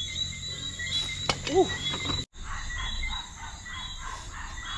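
Outdoor chorus of small wild creatures: many short, high chirps repeating over and over, with rows of pulsed calls at about four a second after a brief dropout. A man says a short "ooh" about a second and a half in.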